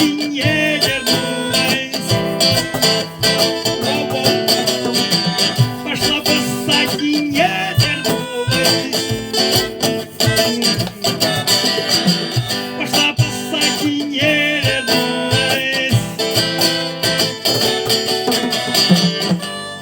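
Live acoustic band playing an instrumental passage: strummed guitar, harmonica and drums.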